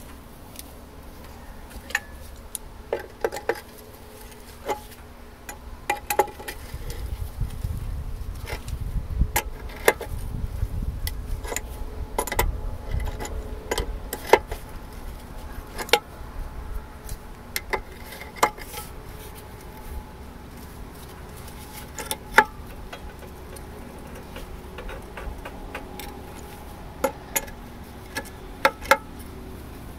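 Adjustable wrench clinking against the nut on a rusty disc harrow gang bolt as it is worked tight, with irregular sharp metal clicks and taps about once a second. A low rumble runs for several seconds in the middle.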